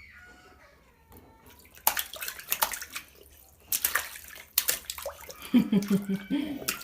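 Water splashing in a bathtub in several sharp bursts, with a young child's voice near the end.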